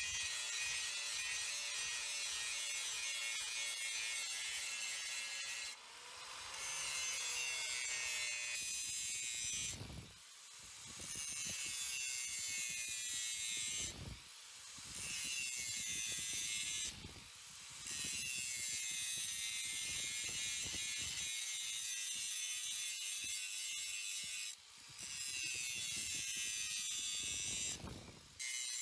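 Power grinder grinding a steel blade: a steady high-pitched hiss that dips briefly every few seconds and then comes back up.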